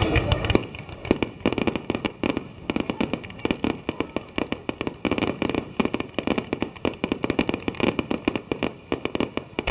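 Fireworks bursting: a low boom at the start, then a dense crackle of sharp cracks and pops, many a second.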